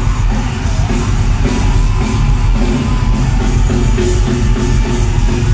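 Live rock band playing loud and steady, with heavy drums, bass and distorted guitar.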